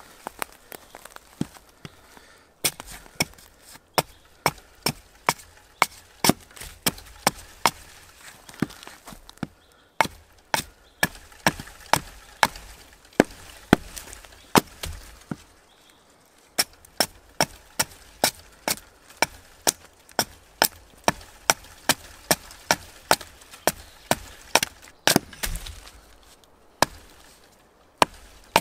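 Hatchet chopping into an upright birch pole, hewing off long shavings: sharp, crisp strikes about two a second in runs, with a few short pauses between runs.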